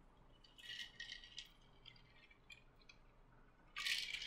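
Ice rattling and clinking in a drinking glass as it is picked up and tilted to drink. There are faint clicks about a second in and a louder rattle near the end.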